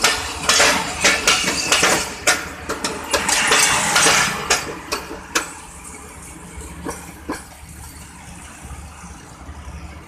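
Passenger coach wheels clattering over rail joints and pointwork as the end of a train rolls past, in a quick, uneven run of sharp clicks with a rushing hiss. After about six seconds the clatter thins to a few faint clicks over a low rumble as the train moves away.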